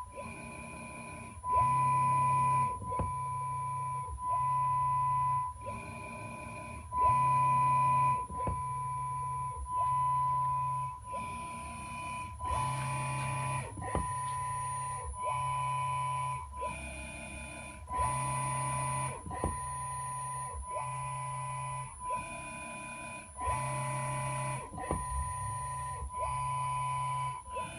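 Chinese 750 W and 1 kW AC servo motors, unloaded on a bench, running a short G-code move program: a steady high whine over a low hum that starts and stops every second or so as the axes move to position and back, with a click at many of the starts and stops.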